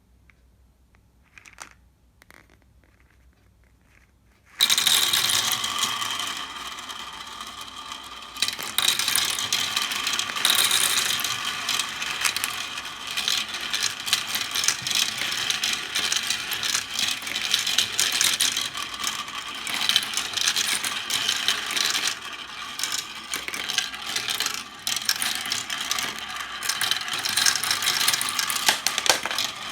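Many glass marbles clattering together and rolling, a dense rattle of small sharp clicks that starts suddenly about four and a half seconds in, after a few faint isolated clicks.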